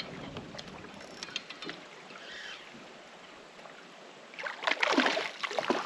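Hooked largemouth bass splashing and thrashing at the surface beside a kayak, in a burst of loud splashes over the last second and a half; before that, only soft water noise around the hull.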